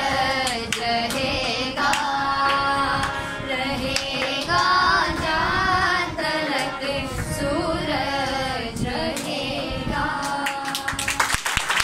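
A group of voices singing a devotional song to steady hand clapping. The singing stops near the end and clapping and crowd noise follow.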